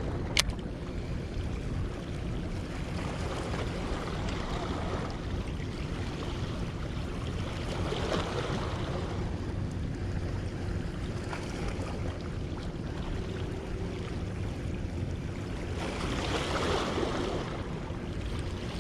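Wind on the microphone over small waves of bay water, with a wash swelling up every few seconds. A single sharp click sounds just after the start.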